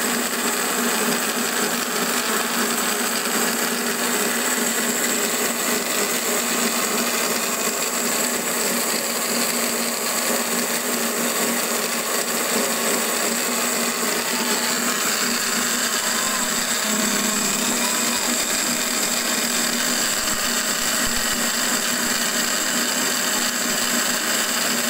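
Electric countertop blender running at a steady speed, grinding an orange spice paste, with a constant-pitch motor whine.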